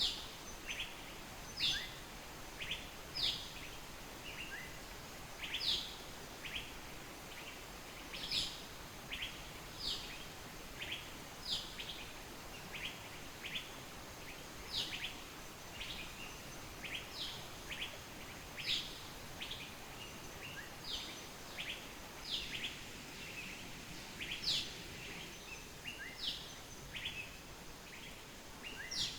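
Small birds chirping: short, sharp high chirps, often several in quick succession, repeating one or two times a second over a steady background hiss.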